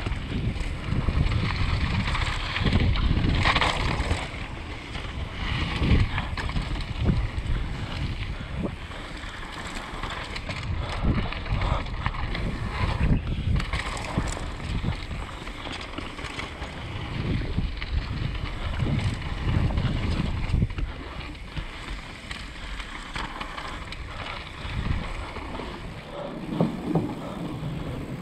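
Wind rushing over a helmet camera's microphone as a Canyon Torque full-suspension mountain bike rolls fast down a gravel and dirt trail, its tyres rumbling and the bike rattling and knocking over bumps.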